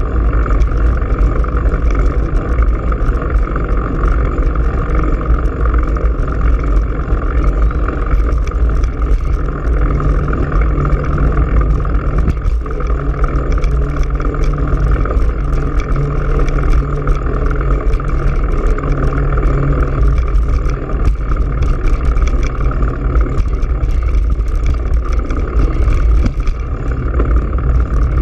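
Steady low wind rumble buffeting a bike-mounted GoPro Hero3's microphone as the bicycle rolls along the road, with road noise and a faint steady hum underneath.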